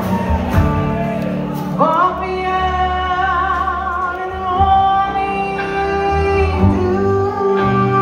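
Live rock band playing a slow song on electric guitars, bass, keyboards and drums. A sustained lead line slides up about two seconds in and wavers on a held note.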